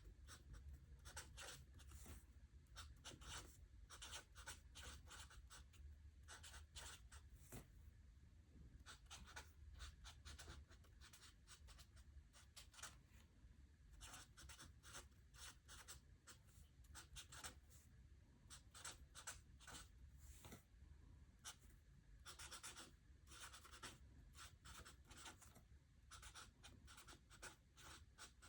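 Faint pen-on-paper writing: short scratchy strokes in quick, irregular runs with brief pauses.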